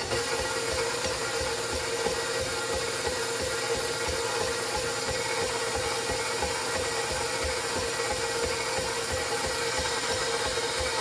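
Electric stand mixer running steadily at speed, its flat beater turning through dry flour in a stainless steel bowl: a constant motor hum with a regular low throb.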